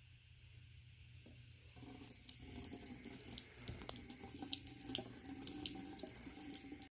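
Water running from a faucet into a sink, a faint trickle that picks up about two seconds in with many small splashing drips, over a steady low hum.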